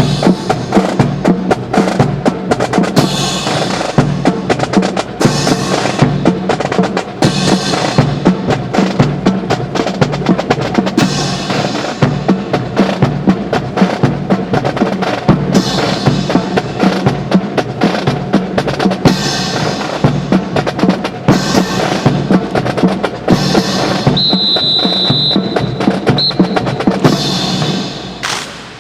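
Marching drum corps playing a fast cadence on snare and bass drums, with a brief high whistle-like tone about three-quarters of the way through. The drumming stops just before the end.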